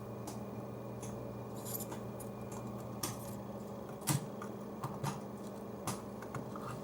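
Scattered small clicks and scrapes of hand tools working a part loose from a car amplifier, over a steady low hum.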